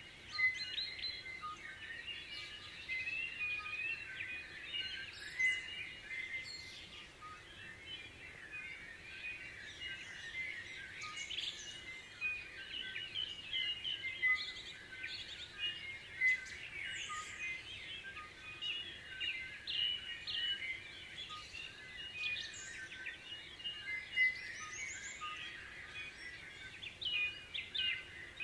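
Dawn chorus: many birds singing and calling at once, a dense, unbroken mix of short overlapping chirps and whistles.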